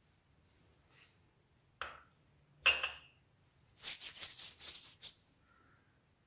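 Kitchen handling sounds: a knock, then a sharp clink that rings briefly, then a quick run of about eight scraping taps.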